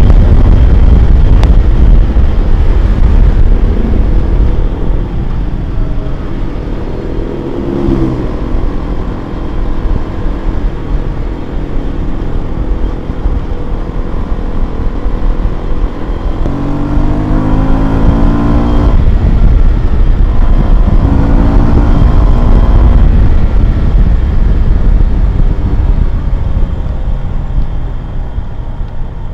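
Yamaha FZ-16 (Byson) carburetted single-cylinder engine with its stock exhaust, running under a heavy low rumble. Its pitch climbs as it accelerates about eight seconds in, again more strongly around the middle, and once more a few seconds later.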